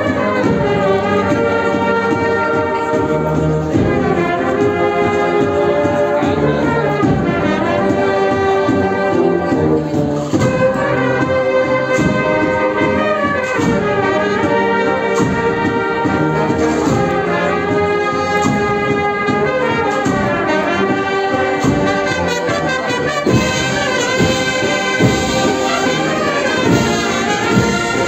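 Brass band playing a Holy Week processional march.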